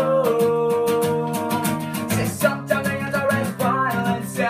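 Strummed acoustic guitar with a man singing over it; he holds one long note for about a second at the start, then sings shorter phrases.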